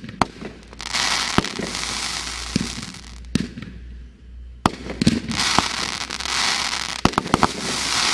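A 25-shot 500 g consumer fireworks cake firing. Sharp shot reports come about every second, some in quick clusters, with long spells of dense crackling from the bursting shells.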